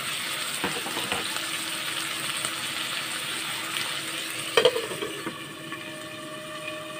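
Potato and vegetable pieces with green chillies sizzling in hot oil in a kadai, with a few sharp knocks. A louder knock comes about four and a half seconds in, and the sizzling is fainter after it.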